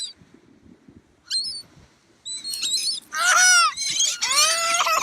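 Seagulls calling: a few short, high calls, then two loud, longer calls that fall in pitch in the second half.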